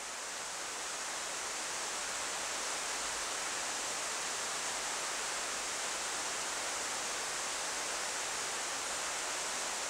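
Heavy tropical rain pouring steadily onto rainforest foliage, an even hiss with no single drops standing out.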